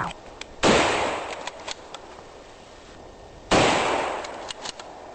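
Two rifle shots from a Karabiner 98k firing 7.92×57 mm Mauser, about three seconds apart, each with a long echoing tail. A few short sharp clicks follow each shot as the bolt is worked.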